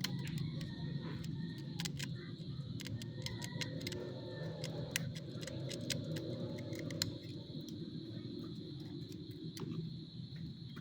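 Irregular sharp clicks and light scraping of small metal hand tools at a workbench, over a steady low hum.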